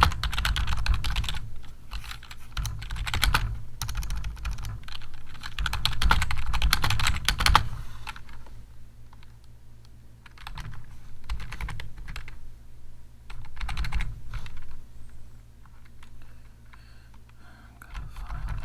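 Computer keyboard typing: rapid, dense keystrokes for about the first seven seconds, then thinning to scattered, quieter taps.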